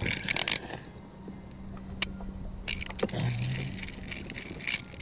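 Tiny spinning reel of an 18-inch mini rod being cranked as a bass is reeled up to the boat, giving bursts of rapid metallic clicking and rattling, first near the start and again from about halfway on.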